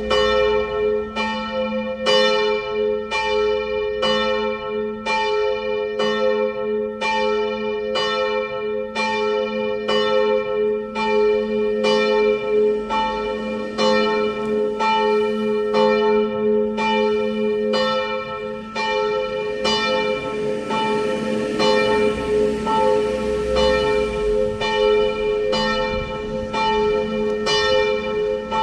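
The middle bell of St. Emmeram's church tower ringing alone. It is struck about once a second, and its low hum carries on between strokes.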